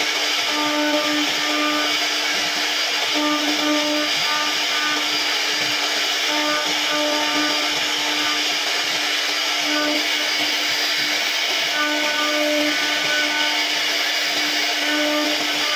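CNC router spindle running steadily as it carves wood, over an even rushing noise; its pitched tone swells and fades every second or so as the bit cuts.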